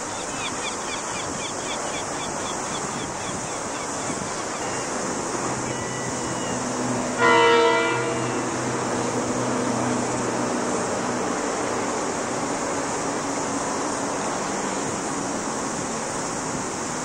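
Diesel locomotive sounding one short horn blast about seven seconds in, over the low steady hum of its engine as the train approaches. Wind and lapping waves run underneath.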